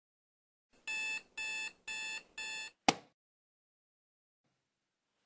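Digital alarm clock beeping four times, about two beeps a second, as it goes off at 6:00. A sharp knock cuts the beeping off, and another knock comes near the end.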